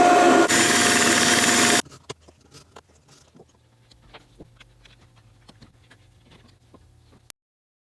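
Power drill running in wood with a steady whine, cutting off suddenly about two seconds in. Scattered faint taps and clicks follow.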